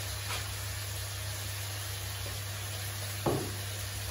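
Diced chicken breast frying gently in a wok on a gas hob: a steady faint hiss over a low hum, with one short sound about three seconds in.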